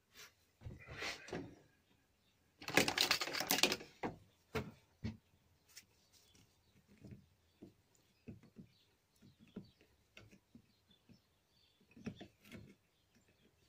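Metal lathe parts handled on a workbench: a short clatter about a second in, a louder stretch of rattling and scraping metal around three seconds in, then scattered light clicks and taps as pliers work on a small fitting of a cast-iron leg bracket.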